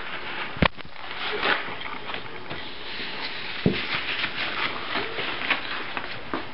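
Scratchy rustling and scuffling of puppies moving about on a blanket and tiled floor, with a sharp knock about half a second in and another just before four seconds.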